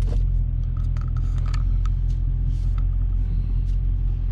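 Dodge Challenger Scat Pack's 392 HEMI V8 idling, a steady deep rumble heard from inside the cabin.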